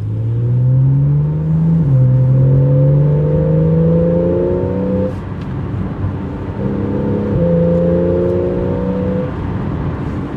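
Porsche 911 Carrera GTS (991.1) naturally aspirated 3.8-litre flat-six with sport exhaust, accelerating hard through the gears. Engine pitch climbs, drops at an upshift about two seconds in, and climbs again to about five seconds before the driver lifts off. A second pull follows with another quick upshift, then the engine settles to a steadier lower note near the end.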